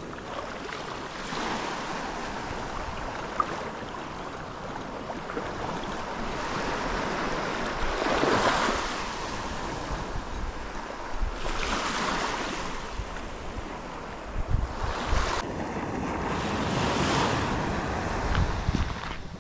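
Small waves breaking and washing up a pebble shore, the wash swelling and fading every few seconds, with wind buffeting the microphone in low rumbles.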